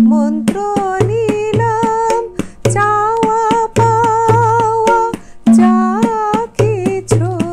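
A woman singing a slow devotional-style melody with wavering held notes while accompanying herself on tabla, playing the ten-beat jhaptal theka (dhi na, dhi dhi na, ti na, dhi dhi na): sharp treble-drum strokes over deep bass-drum notes. A loud ringing stroke comes right at the start and again about five and a half seconds in.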